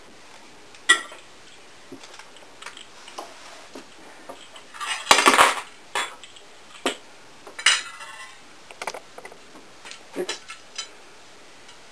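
Metal cutlery clinking and scraping on a plate as a slice of pizza is served and cut. The clicks are scattered, with a louder clatter about five seconds in and a ringing clink near eight seconds.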